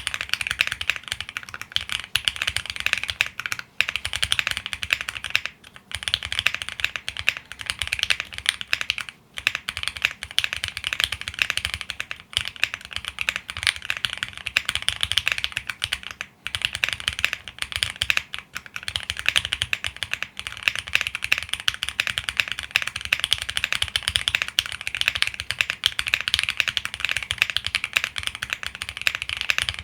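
Fast continuous typing on a QwertyKeys QK75 custom mechanical keyboard with lubed Gateron CJ linear switches, a polycarbonate plate and PBT keycaps. It is a dense stream of clicky keystrokes, broken by short pauses every few seconds.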